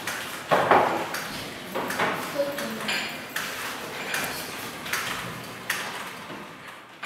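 Cups and saucers clinking and rattling on a serving tray as it is carried, a string of short, sharp clinks with a brief ring, the loudest about a second in.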